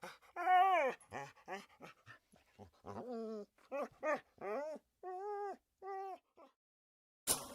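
Puppy whimpering and yelping: a run of short, high pitched calls, some arching up and down in pitch, the longest about half a second in. The calls stop about six seconds in.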